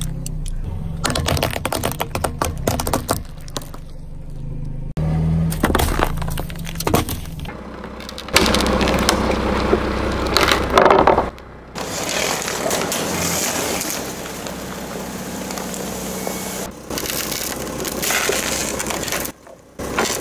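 A car tyre rolling slowly over one object after another and crushing them, with repeated sharp cracks and crunching. A low engine hum runs under the first several seconds, and a denser stretch of crunching and squelching follows from about eight seconds in.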